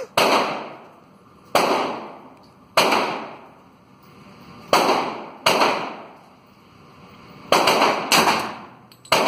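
Thompson submachine gun (Tommy gun) with a drum magazine firing .45 ACP rounds as about eight single shots at an uneven pace, each bang ringing out in the echo of an indoor concrete range lane.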